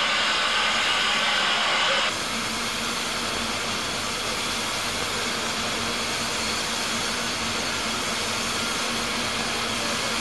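Steady hiss of steam escaping from the standing 2-6-2T steam locomotive Mountain Prince. It drops to a lower level about two seconds in.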